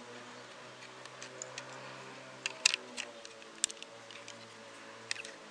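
Plastic LEGO pieces clicking and clacking as fingers handle a LEGO truck cab and minifigure: a few sharp clicks, the loudest about two and a half seconds in, over soft background music.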